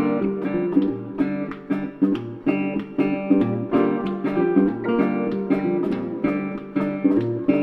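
Background music: strummed acoustic guitar playing a steady rhythmic pattern.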